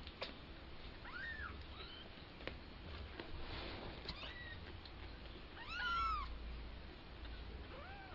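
Young kittens mewing: about four short, high calls that rise and fall in pitch, the loudest about six seconds in. A few sharp clicks come in between.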